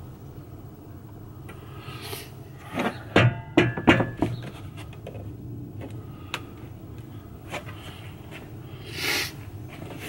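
A quick run of knocks and metal clanks, a few with a short ring, about three to four seconds in, as a steel fridge slide is handled and set on a plywood floor panel. A brief scrape follows near the end.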